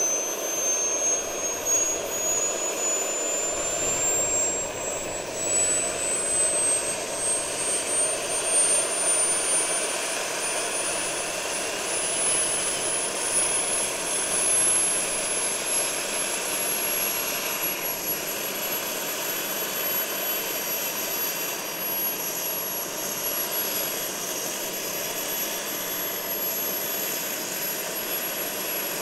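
Scale RC model helicopter running: a thin high whine climbs slowly in pitch for about seventeen seconds as the machine spools up, then holds steady over a constant rush.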